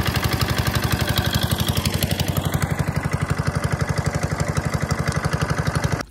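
A wooden river boat's engine running steadily under way, with an even, rapid beat. The sound cuts off abruptly near the end.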